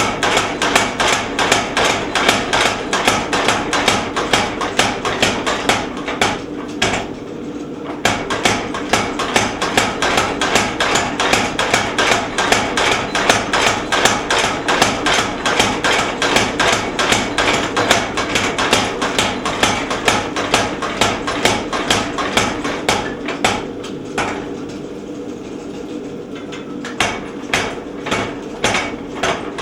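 Little Giant 50-pound power trip hammer pounding steel bar in rapid, even blows as the bar is drawn out thinner. The hammering stops briefly twice, about seven seconds in and again near the end, while a steady hum carries on.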